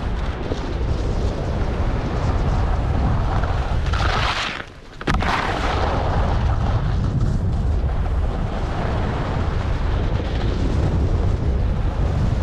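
Wind buffeting an action camera's microphone while skis hiss and scrape over packed snow at speed. About four seconds in the scraping grows sharper, drops away for half a second as the skier leaves the snow off a small jump, and comes back with one sharp clack on landing.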